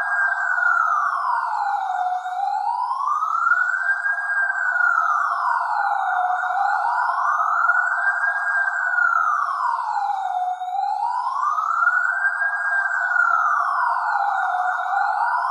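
Electronic police siren sounding a slow wail, its pitch rising and falling smoothly about every four seconds without a break.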